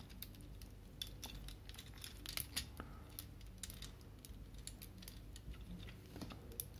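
Faint, irregular clicks and taps of hard plastic Transformers figure parts being handled and fitted together by hand.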